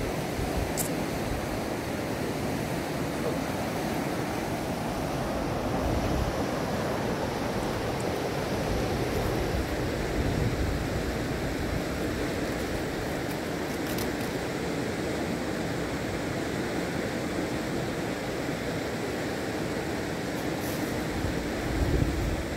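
Fast-flowing mountain river rushing over rocks, a steady, even noise.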